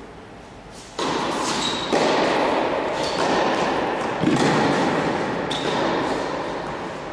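Tennis balls struck and bouncing on an indoor court: sharp knocks, several followed by a short high ring. A loud rushing noise starts suddenly about a second in and continues under them.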